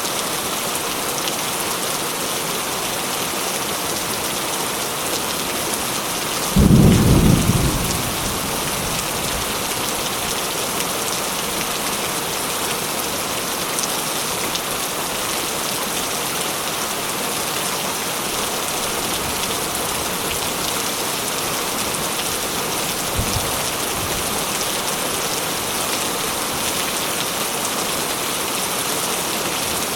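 Steady heavy rain, with a loud, short clap of thunder about six and a half seconds in and a faint low thump near the end.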